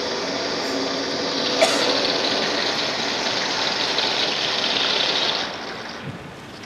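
Loud, steady rushing noise like gushing water or a roaring machine. A sharp click sounds about one and a half seconds in, and the noise fades away about five and a half seconds in.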